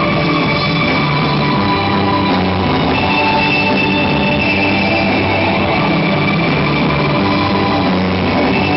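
Live rock band playing loud and steady on electric guitars, bass and drum kit, with held guitar notes ringing over the drums.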